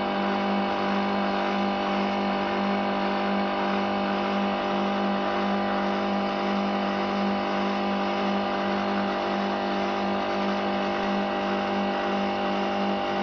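Nanobubble aerator's Japanese-made electric motor running, a steady unbroken hum as it drives air bubbles into the fish pond.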